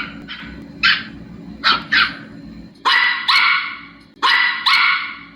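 Pinscher barking in high-pitched yaps: four short, sharp barks in the first two seconds, then two pairs of longer barks about three and four and a half seconds in. A low steady hum sits under the first barks.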